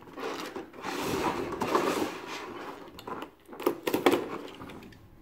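A large, stiff clear plastic blister pack being handled and worked along its edge with a cutting tool: a scraping, crinkling plastic noise, then a few sharp clicks past the middle.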